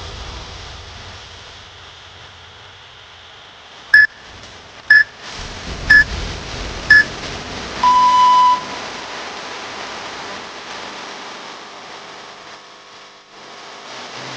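Electronic workout interval timer counting down: four short high beeps a second apart, then one longer, lower beep that marks the start of the next interval, over a steady hiss.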